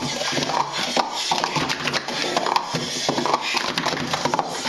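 Plastic sport-stacking cups clacking against each other and the mat in quick, irregular clicks as they are stacked up and down at speed.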